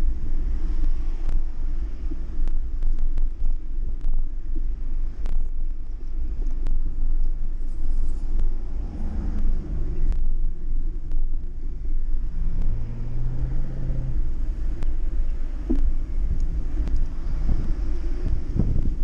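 Steady low wind-and-road rumble on a bicycle-mounted action camera while riding, with scattered light clicks and rattles. A low engine-like hum rises briefly a little past the middle.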